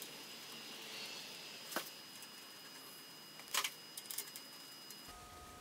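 A few faint clicks and taps of small screws being fitted by hand into the gearbox side cover of a walking tractor, with a short cluster of clicks about three and a half seconds in, over a faint steady whine.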